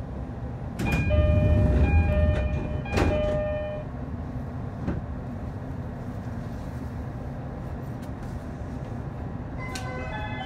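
E531-series electric train standing at a station platform with a steady low hum. About a second in there is a louder stretch of about three seconds, with two sharp clacks and held chime-like tones. Near the end a new series of stepping tones begins.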